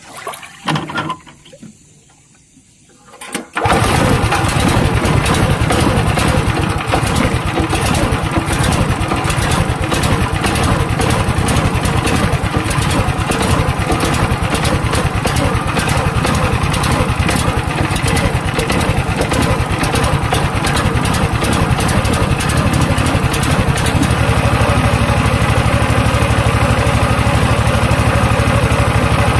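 Small fishing-boat engine that starts abruptly about three and a half seconds in and then runs loud and steady with a fast, even firing beat. About 24 seconds in its low rumble grows stronger.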